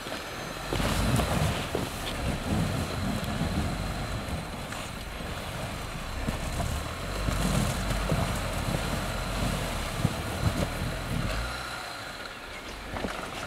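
Jeep engine running under throttle with its tires spinning and churning in deep snow, the rumble rising and falling: the Jeep is stuck, its tires digging themselves deeper instead of gaining traction.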